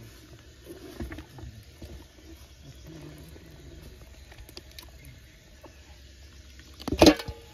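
A knife working a boiled goat head in a steel pot of broth: faint scrapes and clicks, then one loud metallic clank near the end with a brief ring.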